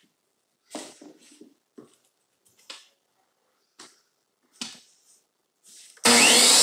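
Short clicks and knocks as the trim board and miter saw are handled and lined up, then near the end the electric miter saw's motor switches on, loud and steady, for a straight cut in the trim.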